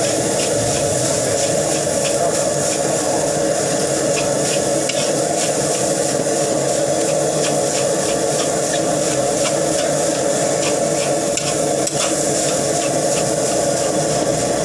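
Fried rice being stir-fried in a wok: a steady sizzle and hiss with a metal spatula scraping and tapping against the wok two or three times a second.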